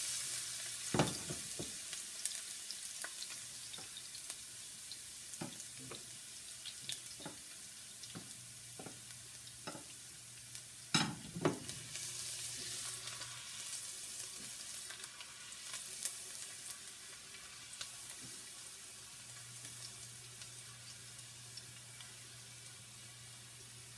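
Minced garlic sizzling in hot oil in a skillet, the sizzle slowly dying down, with scattered clicks of a utensil against the pans and a louder double knock about eleven seconds in.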